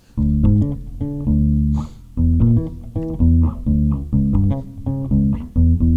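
Electric bass guitar playing a short melodic bass line, single plucked notes one after another with brief pauses between phrases.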